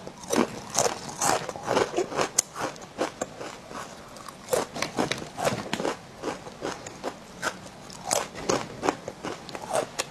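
Close-up chewing of crispy guoba (rice-crust) snack chips: a quick, irregular run of sharp crunches and bites.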